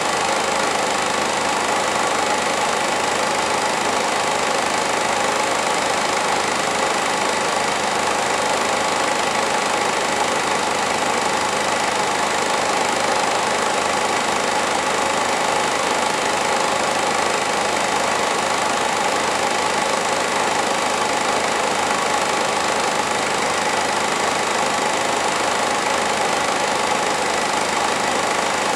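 Film projector running steadily, a constant mechanical whirr from its motor and film transport that does not change.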